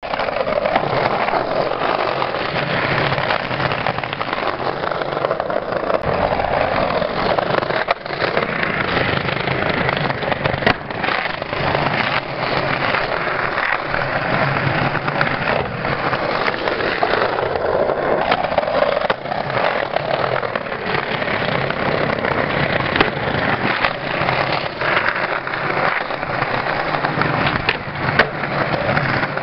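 Skateboard wheels rolling over brick pavers, a steady rumble, broken by a few sharp clacks of the board.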